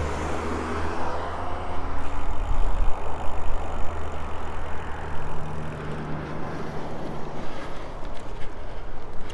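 Highway traffic passing close by, a truck then a car, with engine and tyre noise that swells about two seconds in; the engine note drops in pitch as the first vehicle goes past.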